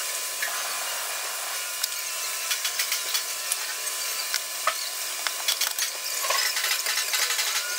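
Sped-up time-lapse sound of a metal fabrication shop: a steady high hiss of shop noise with rapid clicks and scraping from hand work on sheet metal, the clicks growing busier after the first couple of seconds.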